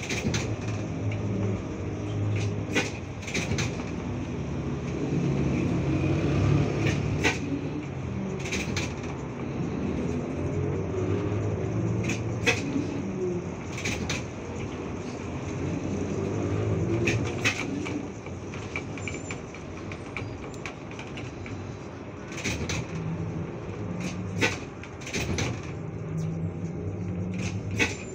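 Trolleybus cabin while riding: the low hum and rumble of the running trolleybus swells and eases with speed, with frequent sharp knocks and rattles.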